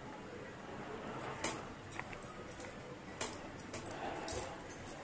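A cooking utensil clinking and scraping against a steel pot as boiled chowmein noodles are stirred: several short, sharp clinks spread across a few seconds over a low steady background.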